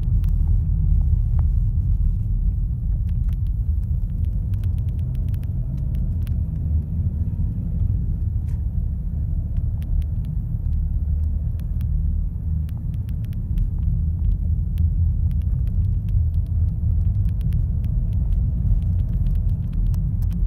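Steady low rumble of a car driving, heard from inside the cabin, with scattered faint clicks.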